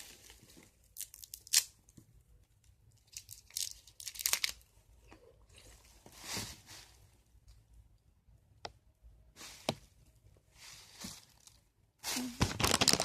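A cough drop's paper wrapper being torn and crinkled open: short scattered rustles and rips, then a dense, louder stretch of crinkling near the end.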